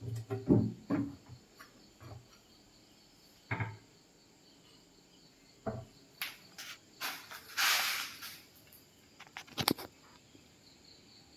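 Modular vanity cabinet door swung shut on its hinges: a cluster of knocks and thuds, followed by a few single knocks and a brief rustling swish about eight seconds in.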